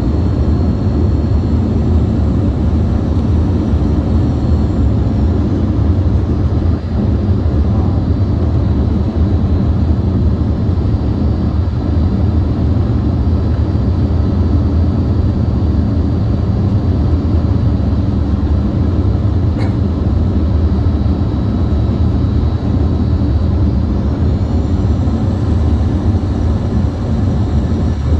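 Steady jet-airliner cabin noise heard from a seat by the wing: a loud, even rumble of engines and airflow. A faint high whine glides upward about four seconds before the end.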